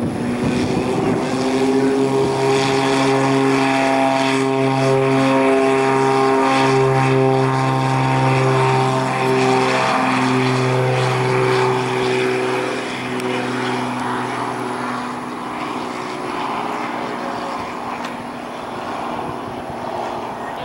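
Cessna 402B's twin piston engines and propellers running at high power as the aircraft rolls past on its takeoff run: a steady droning hum that weakens after about twelve seconds as the plane moves away down the runway.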